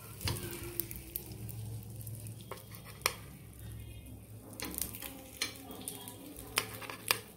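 Oil sizzling in a non-stick paniyaram pan, with irregular sharp clinks of a metal spoon against the pan and dishes as the cooked egg paniyaram are lifted out.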